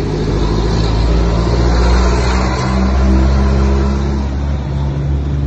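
A motor vehicle engine running close by, a steady low hum that swells slightly midway.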